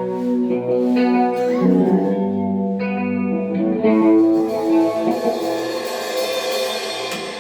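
Guitar music with effects: held notes and chords ringing and changing about once a second, getting gradually quieter toward the end.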